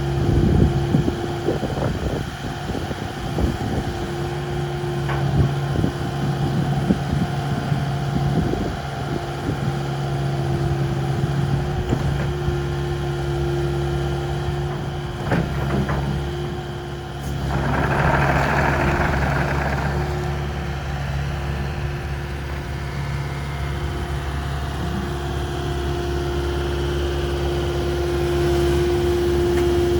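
Kubota KX080 midi excavator's diesel engine running steadily at idle. Knocks and clanks come through in the first several seconds, and a brief hiss lasting about two seconds comes about 18 seconds in.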